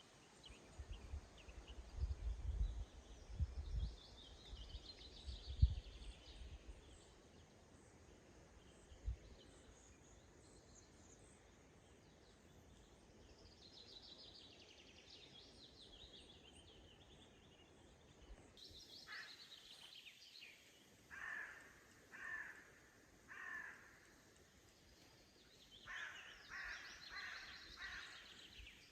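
Wild birds calling in a quiet forest: high rapid trills come and go, and in the second half one bird gives a series of short calls about a second apart, quickening near the end. Low rumbles sound in the first few seconds.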